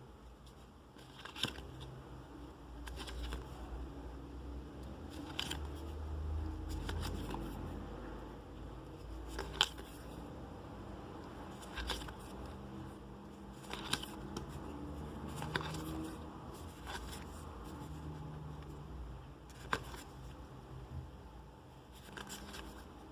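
Hands handling trading cards and their packaging: scattered light clicks and scraping at irregular intervals, over a low rumble.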